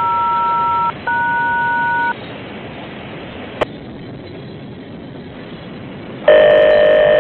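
Railroad radio heard through a scanner: two touch-tone (DTMF) beeps of about a second each, the kind keyed to call the dispatcher. A click follows, then near the end a louder, longer tone of several pitches.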